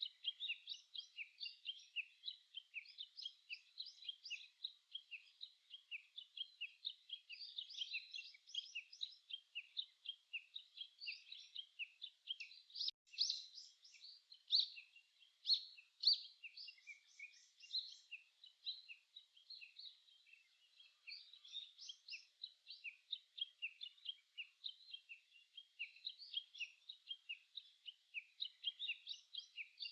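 Small songbirds chirping and singing in a dense, continuous chorus of quick, high notes, with a few louder calls about halfway through.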